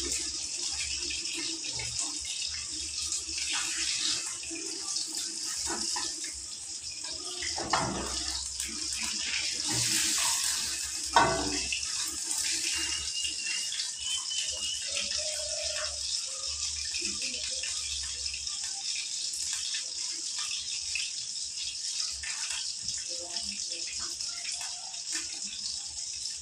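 Food frying in hot oil in a wok: a steady sizzle, with the occasional knock and scrape of a spatula against the pan.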